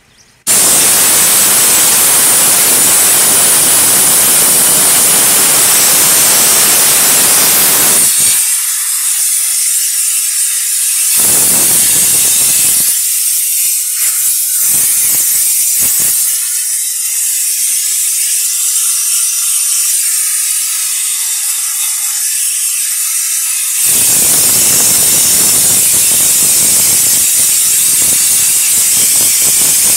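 Compressed air hissing from a blow gun as an engine air filter element is blown clean. The hiss starts suddenly about half a second in, thins to a higher hiss through the middle, and comes back full near the end.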